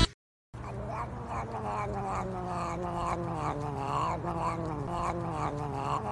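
Cats vocalizing: a drawn-out, slowly wavering low cat call, starting about half a second in, with short higher sounds repeating two or three times a second over it.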